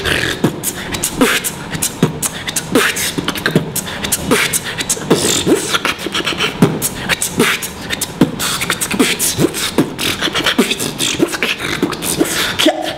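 A man beatboxing: a fast, unbroken run of mouth-made drum sounds, sharp clicks and short sliding vocal notes.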